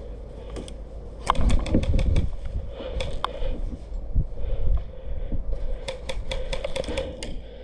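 Airsoft guns firing: strings of sharp, rapid clicks, the longest string near the end. Under them are low bumps and rustling of movement close to the microphone.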